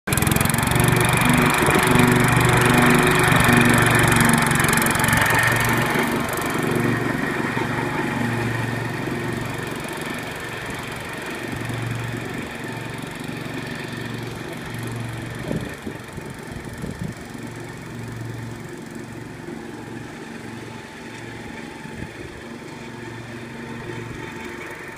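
Gravely two-wheel walk-behind tractor with sulky seat and front mower deck, its engine running under mowing load. It is loudest in the first few seconds and fades steadily as the machine drives away.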